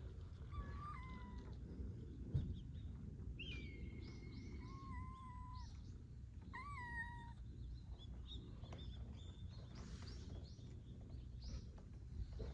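A cat meowing: three drawn-out, high-pitched meows that rise and then fall in pitch, the middle one the longest.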